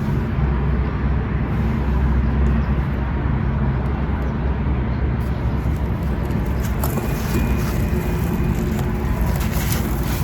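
Dry, gritty red sand-cement crunching and crumbling, with faint crisp crackles from about halfway through, over a steady low rumble.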